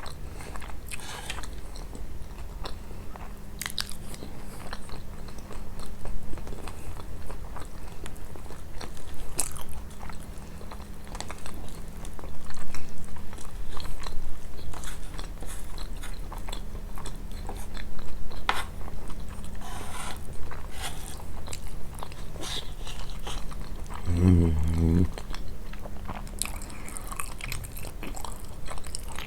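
Close-miked biting and chewing of kunafa, the crisp shredded-pastery crust with Nabulsi cheese giving scattered crunches and crackles.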